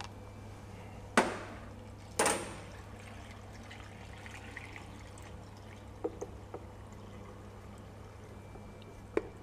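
Vinegar-and-water pickling brine poured from a plastic measuring jug into a large glass jar of pickles, with two sharper splashes about one and two seconds in.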